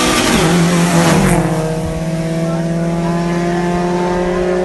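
Street race cars running at high revs down the road. One passes close with a loud rush about a second in, then a steady high engine note carries on as the cars pull away.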